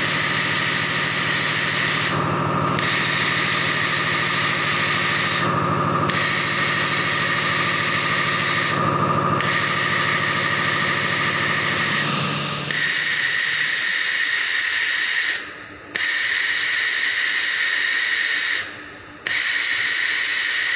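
Battery-pack laser welding machine at work, a loud steady hiss with a high whistle. The hiss breaks off briefly every three to four seconds, and a lower hum underneath stops about twelve seconds in.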